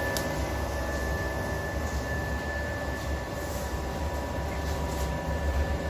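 Electric arc welding: a steady buzzing, crackling arc with a constant hum and a thin steady whine, with a few sharp crackles.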